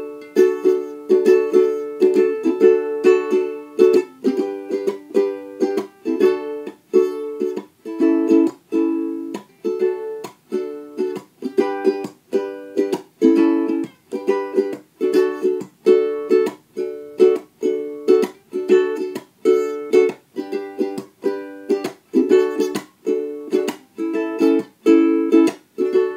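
Instrumental background music: a plucked string instrument strumming chords in a steady rhythm, about two chords a second.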